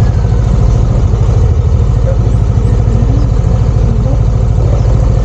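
Motorcycle engine running steadily, its fast even firing pulses loud and constant throughout.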